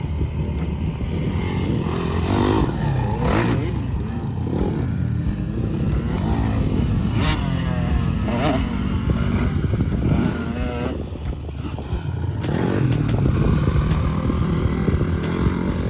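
A motor vehicle's engine running and revving up and down, with a few knocks and rattles.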